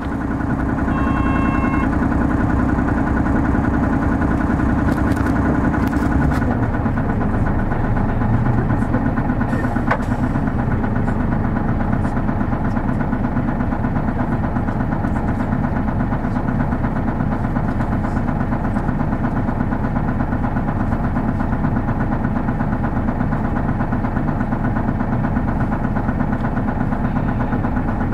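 Diesel engine of a Hino Blue Ribbon City Hybrid city bus, heard from inside the cabin, running steadily, its drone changing in tone about six seconds in. A short electronic beep sounds about a second in.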